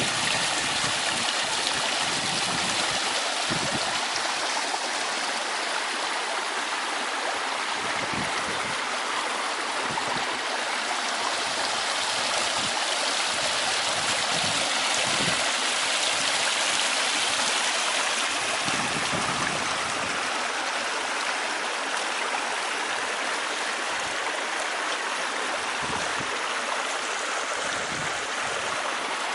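A small waterfall: water falling and splashing in a steady, continuous rush.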